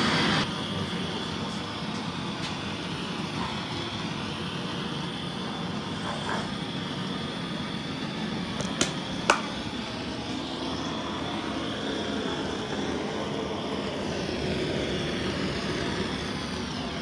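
Handheld gas-cartridge blowtorch burning with a steady hiss of flame as it scorches a wooden shelf. Two sharp clicks about halfway through.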